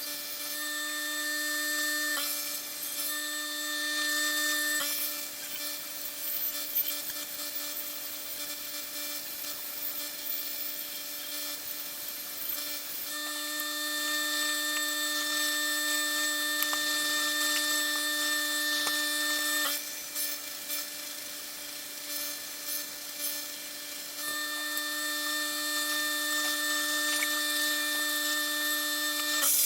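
Electric power tool abrading an aluminum bronze casting: a steady motor whine over a continuous hiss of abrasive on metal. The whine comes and goes in stretches of a few seconds as the work is pressed and eased.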